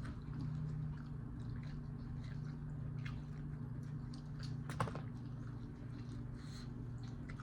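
Close-miked chewing and mouth sounds of someone eating chicken wings: scattered small wet clicks, with one sharper click about five seconds in, over a steady low hum.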